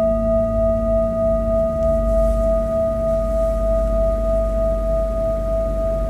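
A large metal singing bowl ringing on after a strike, a sustained hum made of a low fundamental and several higher overtones held at a steady level. The highest overtone fades out about two seconds in.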